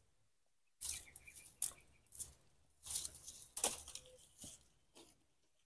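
Faint, irregular rustling and crackling, with a few soft high chirps in between.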